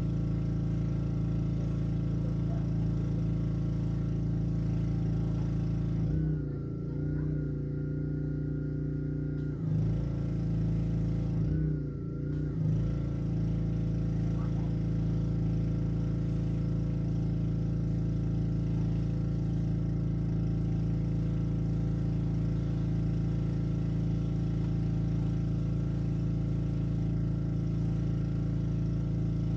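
Honda small engine of a Black Max gas pressure washer running steadily. Its note twice shifts in pitch and level for a moment, for about three seconds near six seconds in and briefly again near twelve seconds in.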